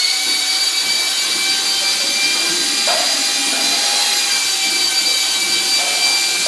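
Electric power-tool motor running at full speed: a steady high-pitched whine.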